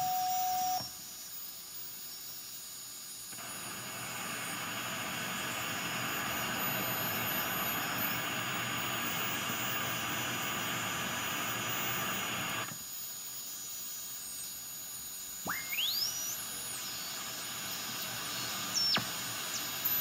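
Demodulated receiver audio from an RTL-SDR tuned to the Drake TR4's 9 MHz IF. A steady whistle stops about a second in, followed by band-limited static hiss that fades and swells. Near the end come heterodyne whistles that sweep sharply up and then down in pitch as a carrier slides across the passband.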